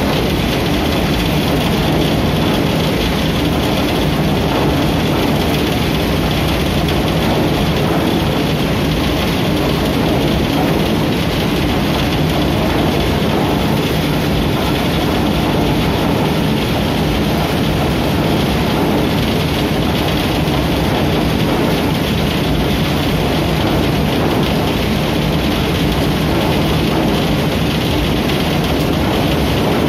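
Homemade shaftless thresher running steadily, its wire-ring drum spinning with clumps of crop tumbling inside. It makes a loud, even, continuous machine noise with a low hum under it, never changing.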